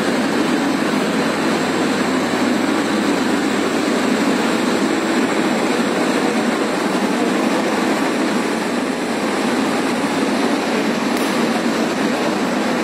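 Silk City Express passenger coach rolling slowly out of the station as the train departs: a steady running noise of wheels and carriage, heard from inside the coach at an open window.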